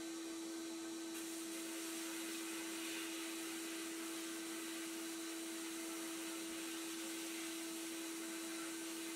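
Sandblast cabinet running: a steady hiss of abrasive blasting against a rusty steel toy airplane part, with a constant hum. Both start suddenly, and the hiss grows stronger about a second in.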